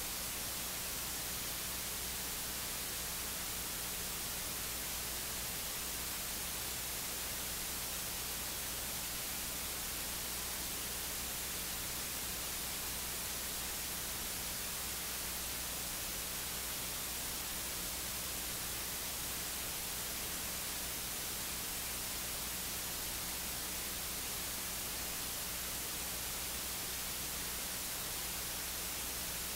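Steady hiss of electronic static with a low hum beneath it; no voice is heard.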